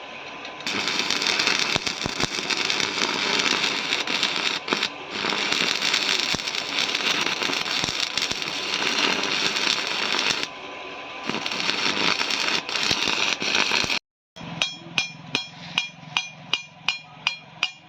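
Electric arc welding on a thick steel tractor plate: a steady, loud crackle and sizzle of the arc, broken briefly about two-thirds through. Near the end it cuts off suddenly, and a fast, even run of sharp ringing metallic taps follows, about four a second.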